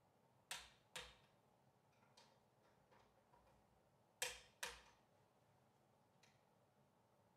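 Click-type torque wrench clicking as it reaches its 60 in-lb setting: two sharp clicks in quick succession about half a second in, another pair about four seconds in, and a few faint ticks between them.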